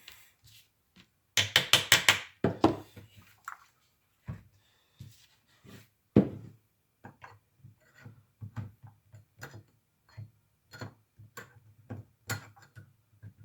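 Metal hand tools clicking and knocking against a chainsaw while reaching in to fish out a dropped nut: a quick loud rattle of clicks about a second and a half in, a sharp knock around six seconds, then lighter scattered ticks.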